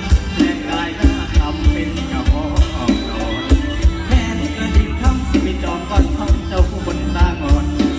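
Live Isan mor lam band music with a steady, driving drum beat and a singer's voice over it, played loud through the stage sound system.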